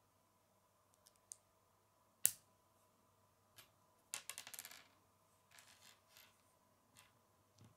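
Small plastic Lego pieces clicking and clattering against each other and a wooden tabletop as they are picked from a loose pile and fitted together. One sharp click about two seconds in is the loudest, and a quick rattle of pieces follows about four seconds in, with a few lighter clicks after it.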